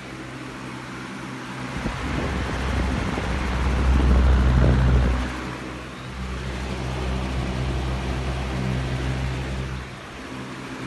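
A small electric fan running with a steady motor hum. From about two seconds in, its air buffets the microphone in a low rumble that is strongest around four to five seconds and eases off near the end.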